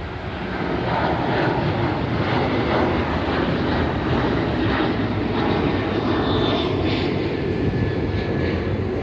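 Boeing 737 jet engines at takeoff power on the takeoff roll: steady, loud jet engine noise that swells about a second in and holds.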